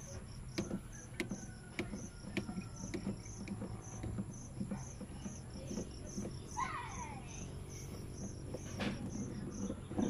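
Crickets chirping in a steady, even pulse of about two chirps a second, with light clicks and knocks from a plastic shift knob being twisted off its threaded gear lever by hand.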